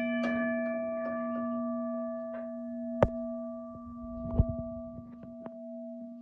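US&S "Teardrop" electromechanical railroad crossing bell that has just stopped striking, its gong ringing on with a steady tone that slowly fades. Two sharp clicks come through, about three and four and a half seconds in.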